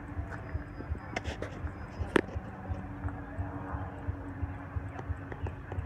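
Steam traction engine moving slowly, its engine beating in a steady low rhythm of several beats a second, with one sharp knock about two seconds in.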